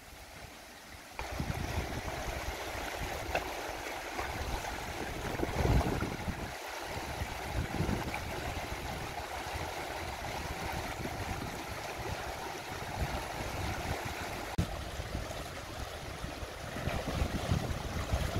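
Shallow, rocky river rushing and gurgling over stones, much louder from about a second in. Splashing from someone wading through it near the end.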